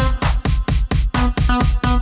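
Electronic dance music with a steady fast beat, about four beats a second.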